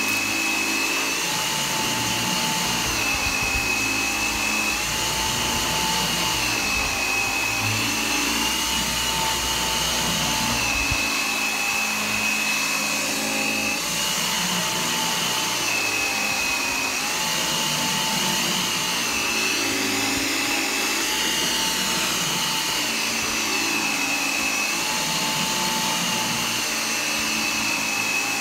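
G-Tech AirRam 2 cordless upright vacuum cleaner running steadily, heard close up from the machine itself. Its motor whine steps slightly up and down in pitch every second or two over a constant rush of air.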